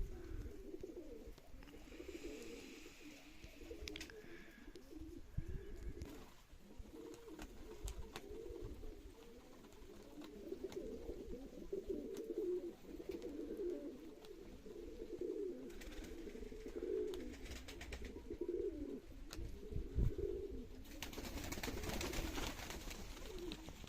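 Baku pigeons cooing without a break, several birds overlapping in a low, warbling murmur. Near the end there is a patch of hiss.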